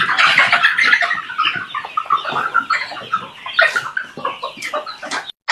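A flock of chickens calling: many short, overlapping calls. The sound cuts off suddenly just before the end.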